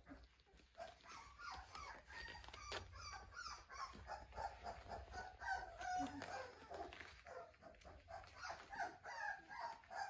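Young Australian Shepherd puppies squeaking and whining, with many short, high calls overlapping one another.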